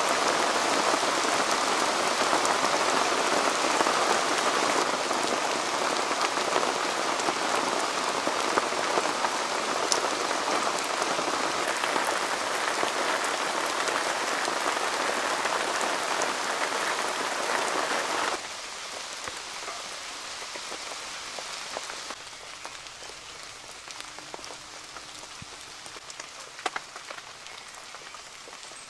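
Heavy, steady rain heard from inside a canvas tent. About two-thirds of the way through it drops suddenly to quieter rain with separate drips ticking.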